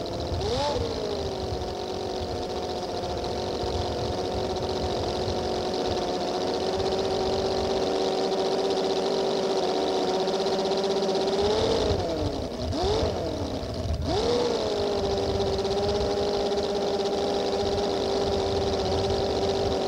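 A working scale model Rolls-Royce Merlin V12 aero engine running on a test stand at a steady speed. The revs rise and settle briefly near the start, then drop and pick up again twice about two-thirds of the way through.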